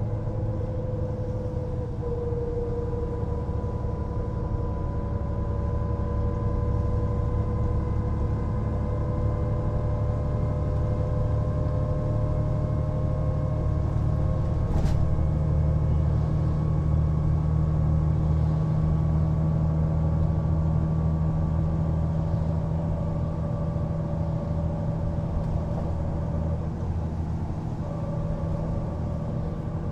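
Mercedes-Benz O405NÜ bus's diesel engine running steadily, with a higher whine above it that drifts slowly in pitch. One short click about halfway through.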